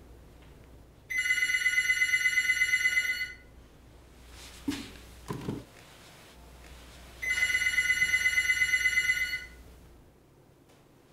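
Cordless home telephone ringing twice, each ring a rapid electronic trill lasting about two seconds. A few soft knocks come between the two rings.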